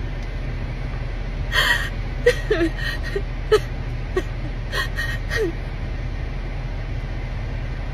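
A woman crying without words: a sharp gasping breath about a second and a half in, then a run of short whimpering sobs that die away after about five and a half seconds.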